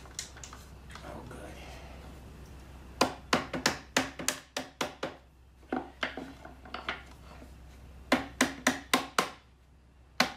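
Mallet tapping maple spindles into their sockets in a Windsor chair seat during a dry fit. The taps come as quick runs of sharp knocks, one burst a few seconds in and another near the end.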